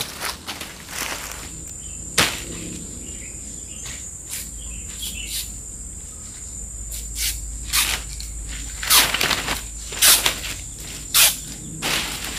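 A steady high insect drone runs under a series of sharp cracks and snaps from a sago palm frond stalk being split and broken by hand. The cracks come more often in the second half.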